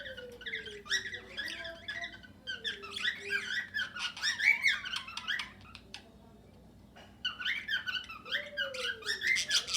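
A mixed flock of cockatiels and budgerigars (Australian parakeets) chattering and squawking in quick, dense high chirps. The chatter dips about six seconds in and picks up again a second later. A few slower, lower calls fall in pitch among the chirps.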